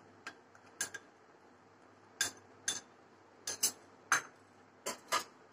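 A metal spoon clinking against a glass bowl and a steel mixing bowl as milk powder is scraped out and the bowl is set aside. About ten short, sharp clinks come at uneven intervals, some in quick pairs.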